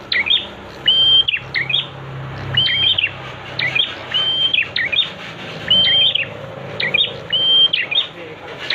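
Prinia (prenjak) singing, repeating a short phrase of a held high whistled note with quick sharp chirps about once a second, over steady background noise.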